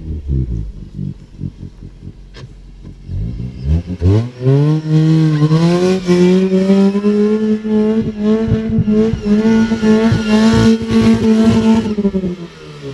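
Nissan Micra's engine running low with scattered knocks and rattles, then revving up sharply about four seconds in and held at high revs for around eight seconds before dropping back near the end.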